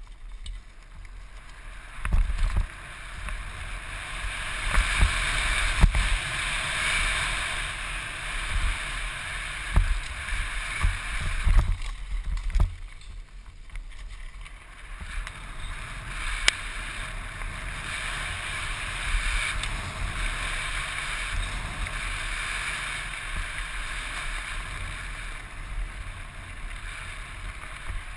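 Downhill mountain bike descending a dirt forest trail, heard from a helmet camera: wind rushing over the microphone and tyres on loose dirt, with low thumps as the bike hits bumps. The noise drops for a moment about halfway, then picks up again.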